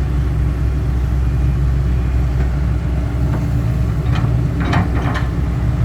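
Heavy diesel engine running steadily at low revs, a smooth, even hum.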